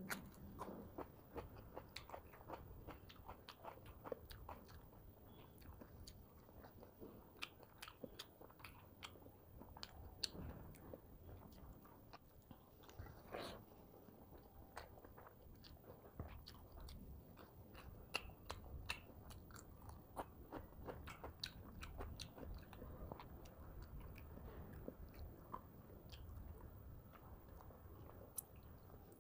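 Close, clip-on-microphone sound of a person eating by hand: soft, wet chewing and biting with many small sharp mouth clicks and smacks and an occasional crunch.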